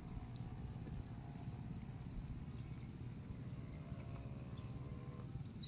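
Steady high-pitched chorus of insects shrilling at dusk, over a low constant rumble of outdoor air and wind on the microphone.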